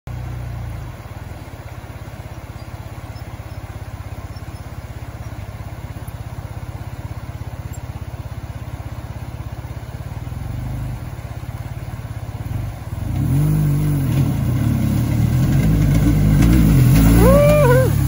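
BMW GS boxer-twin adventure motorcycle running steadily at low revs. From about two-thirds through it gets louder and revs up and down as it rides through a shallow river, with water splashing.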